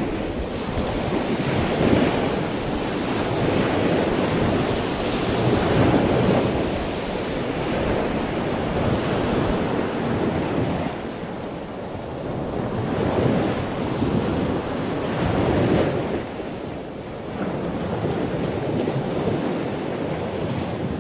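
Wind buffeting the microphone over the rush and splash of choppy sea water alongside a boat, swelling and easing every few seconds.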